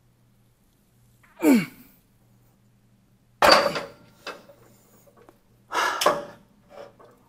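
A weightlifter's strained grunt, falling in pitch, about a second and a half in, followed by loud heavy exhales and gasps between barbell overhead-press reps, with a sudden thunk about three and a half seconds in and a few small clicks.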